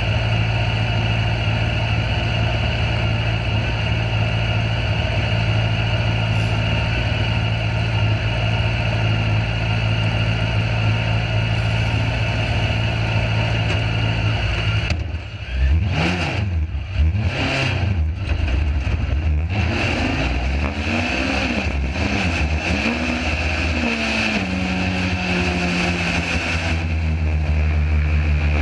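Sand rail engine idling steadily, then blipped and revved several times about halfway through as it pulls away, and running at a steady, higher pitch near the end.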